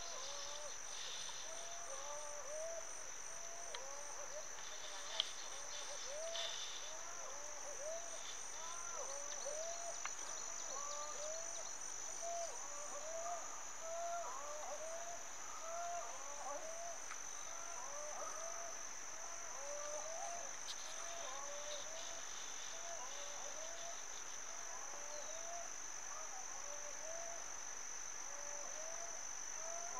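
Insects shrilling in a steady, high-pitched drone, over a chorus of short, repeated calls lower in pitch, about one or two a second.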